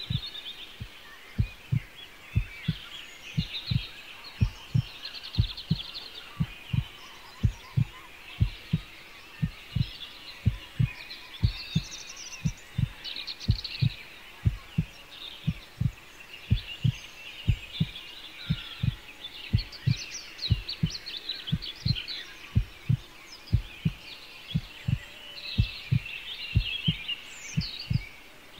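A steady heartbeat sound effect: a long run of deep, evenly spaced thumps, some in lub-dub pairs, the heartbeat of a frightened character in hiding. Birds chirp lightly behind it.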